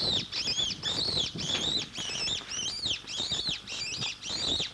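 A fox caught by the lurchers squealing in distress: a rapid, unbroken string of high rising-and-falling cries, about three a second.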